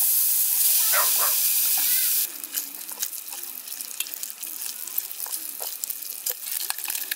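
Food frying in a pan: a loud, even sizzle for about two seconds that cuts off abruptly, then a quieter crackling sizzle with many small pops.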